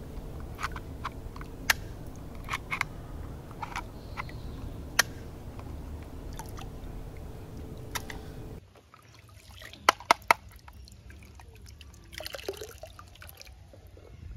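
Water sloshing and dripping as hands move plastic toy guns about in shallow water, with scattered sharp clicks and a quick run of three louder knocks about ten seconds in.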